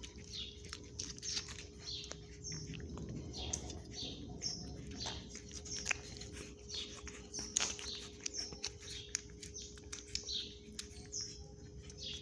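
Miniature pinscher puppies suckling at their mother, with wet smacking clicks, and repeated short, high, falling chirps about once or twice a second.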